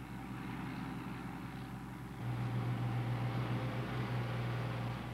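Heavy construction machinery running in a rock tunnel: a steady mechanical din, joined about two seconds in by a louder, steady low engine drone.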